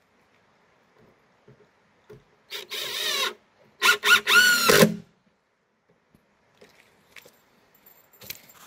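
Cordless drill driving screws into pressure-treated wooden deck blocking. It comes in two bursts, about two and a half seconds in and again about a second later, with the motor's whine sliding in pitch as each screw runs in.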